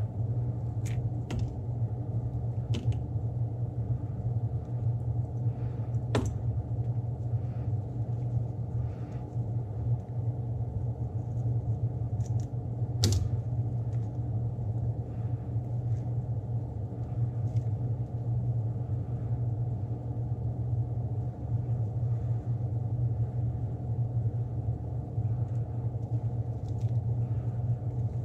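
Spray booth fan running with a steady low hum, with a few sharp clicks and crinkles as binder clips and a mesh stencil wrap are taken off a painted lure.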